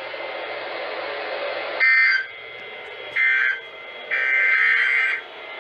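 Emergency Alert System digital data bursts over NOAA Weather Radio: three harsh buzzing bursts, two short and the last about a second long. A couple of seconds of steady radio hiss come before them.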